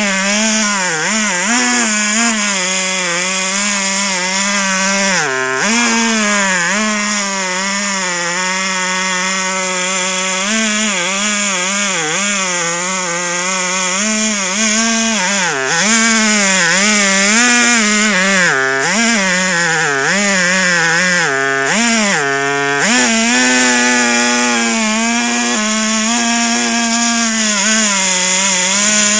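Two-stroke chainsaw in a chainsaw mill running under load as it rips a log lengthwise. The engine note wavers throughout and bogs down briefly a few times, most deeply around 5, 19 and 22 seconds in, as the bar is pushed through the cut.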